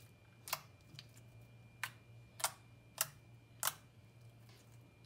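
Ultra thick, glossy slime being squeezed and pressed, making sharp clicks about every half second, with a faint steady hum underneath.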